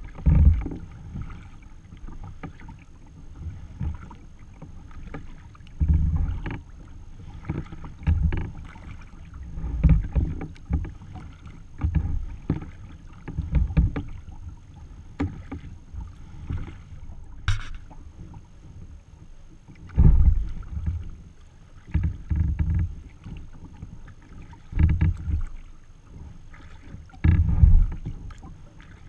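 Water splashing and sloshing against a sea kayak's hull as it is paddled, in uneven surges every couple of seconds. There is one sharp click about seventeen and a half seconds in.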